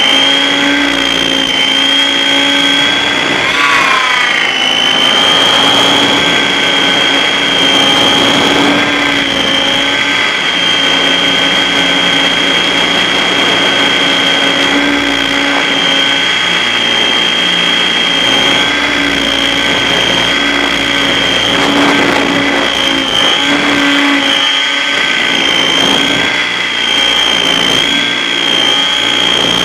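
Align T-Rex 800 RC helicopter in flight, heard up close from on board: a loud, steady high whine from its drive and rotor, with brief dips and wobbles in pitch as it manoeuvres, the largest about three seconds in.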